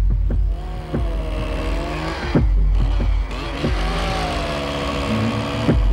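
Engine of a working machine running, its pitch rising and falling slowly as it speeds up and slows, with heavy low rumbling and a few sharp knocks.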